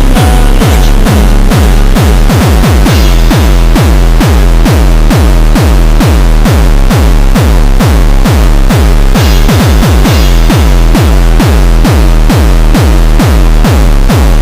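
Loud electronic dance music with a fast, steady, deep bass beat.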